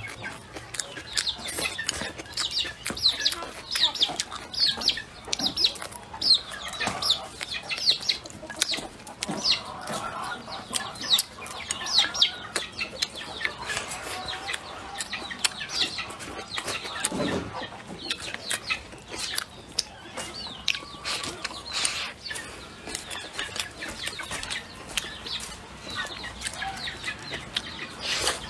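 Close-up eating sounds: wet chewing and lip smacks while eating braised duck and rice, in quick repeated clicks about two a second.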